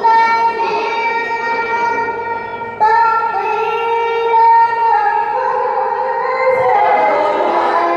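Teenage qoriah's solo Quran recitation (tilawah) in a high register, sung into a handheld microphone. She holds long, sustained notes, starts a fresh phrase about three seconds in, and near the end the voice turns into quick wavering ornaments.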